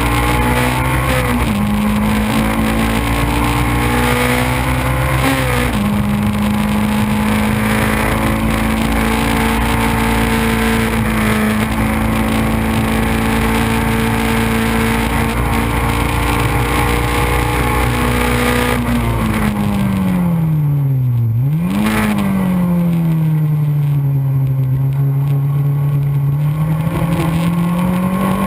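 Race car engine running hard at high, steady revs, with a small drop in pitch about six seconds in like a gear change. Past twenty seconds the revs fall steeply as the car slows for a corner, jump back up sharply as a lower gear goes in, then dip and climb again as it accelerates away.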